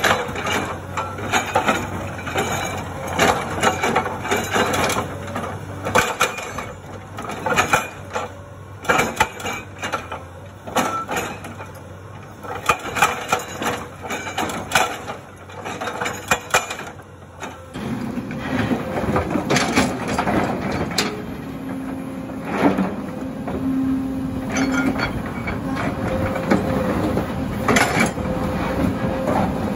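A Komatsu excavator's hydraulic breaker hammer pounds and cracks rock, with rapid, irregular sharp impacts and crunching stone. About two-thirds of the way through this gives way abruptly to a steadier excavator diesel engine working under load, with occasional knocks of rock as broken stone is loaded into a dump truck bed.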